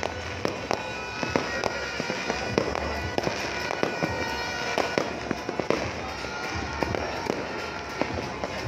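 Fireworks going off all around the city: a constant stream of irregular bangs and pops, some loud and close, others faint and distant, over a continuous crackling haze.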